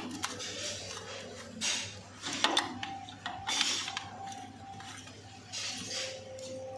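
Spanner and metal fittings clinking and scraping in several short, irregular bursts with a few sharp clicks, as bolts holding a Mahindra Yuvraj 215 tractor's radiator are undone.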